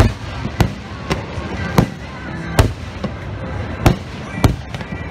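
Aerial firework shells bursting: about seven sharp booms at uneven intervals of half a second to a second or so. The first is the loudest.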